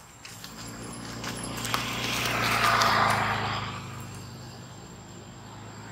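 A vehicle passing: a rush of noise swells to a peak about three seconds in, then fades, over a steady low hum.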